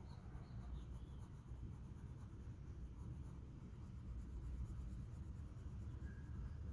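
Colored pencil scratching faintly on paper as it shades in a small area, over a low background rumble.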